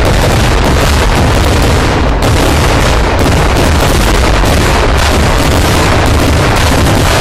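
Kerala temple-festival fireworks (vedikkettu) going off in a dense, very loud barrage: many blasts a second running together with no break, with heavy low booms under them.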